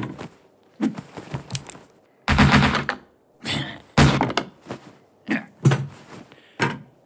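Cartoon sound effects: a series of separate wooden thunks and knocks, about seven hits, the heaviest and longest a couple of seconds in.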